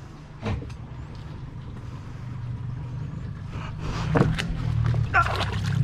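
Boat motor running slowly with a steady low hum as the aluminium boat noses into the gully. Near the end there are a few knocks as the crab pot rope is handled against the hull.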